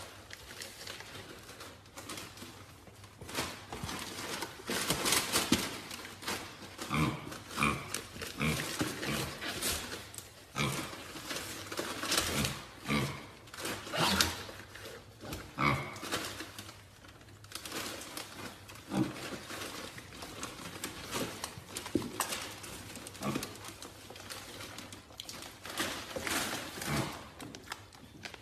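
An animal's short, irregular vocal sounds, some pitched, mixed with clicks and rustling.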